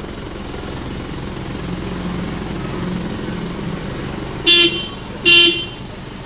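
Mazda BT-50's car horn sounded in two short toots less than a second apart, over the steady idle of its 2.5-litre diesel engine.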